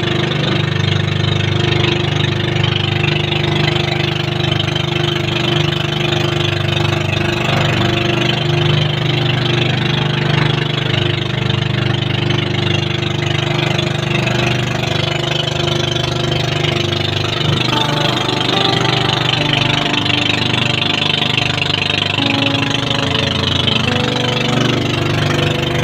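Motorised outrigger boat's engine running steadily under way, with a constant hum and a hiss of water and wind over it.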